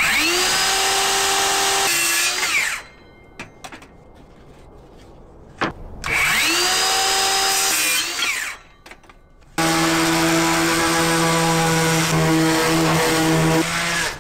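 Cordless drill-driver backing screws out of a plywood battery tray: three runs of the motor, the first two whining up in pitch and then holding steady, the third, from about ten seconds in, longer and lower-pitched. Light clicks and knocks of wood being handled fall between the runs.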